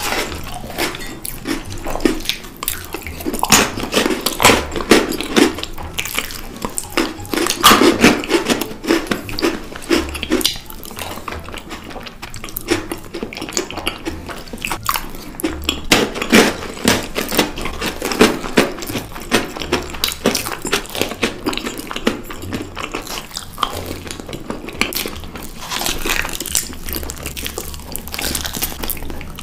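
Close-miked eating: many crisp bites and chewing of chocolate-coated biscuits and chocolate snacks, with spoon clinks and scrapes on plastic pudding cups.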